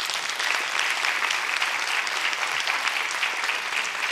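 Audience applauding, a dense steady spread of many hands clapping that begins to thin out near the end.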